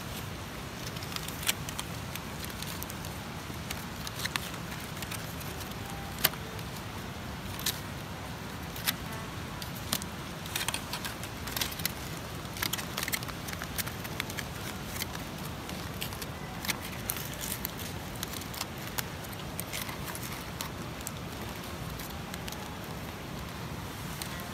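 Wood campfire crackling, with irregular sharp pops and snaps over a steady low hiss.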